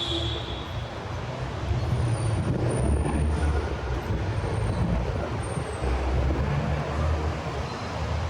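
City street traffic: a steady low rumble of vehicles running past, growing louder about two seconds in.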